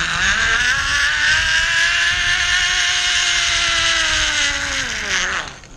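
Zipline trolley pulleys running along a steel cable: a loud whine over a rushing hiss that rises in pitch as the ride picks up speed, holds steady, then falls and fades about five seconds in as the trolley slows.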